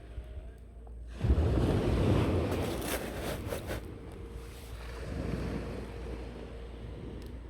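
Sea waves on the shore: a wave breaks about a second in and washes loudly for a few seconds, then settles to a lower steady wash, with some wind.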